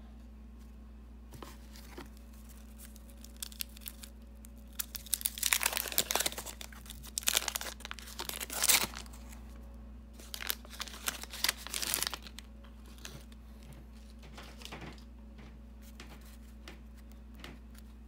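Wax-paper wrapper of a 1991 Fleer basketball card pack being torn open and crinkled. The crackling comes in bursts, loudest from about five to nine seconds in and again from about ten to twelve seconds, with a few light clicks before and after.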